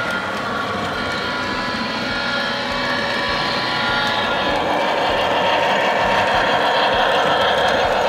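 O gauge three-rail model freight trains running: metal wheels rolling on the track with a steady motor whine, getting louder about four seconds in as a Nickel Plate Road diesel locomotive passes close on the near track.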